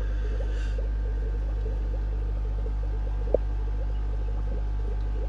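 Steady fishroom background from aquarium equipment: a constant low hum with water bubbling and trickling, and one sharp click a little over three seconds in.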